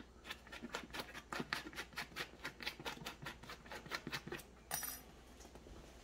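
Patch-kit scraper rasping back and forth on a rubber inner tube in quick, faint scratching strokes, several a second, stopping near the end. The rubber is being roughed up so a patch will adhere.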